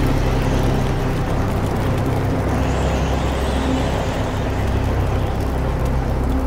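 Dark, steady, low rumbling drone with a hissing layer over it, a sound-design bed under a horror title sequence.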